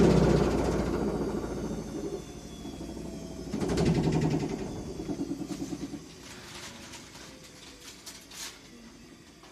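Washing machine running with a rhythmic throb that fades away, swelling briefly again partway through, with a few faint clicks near the end.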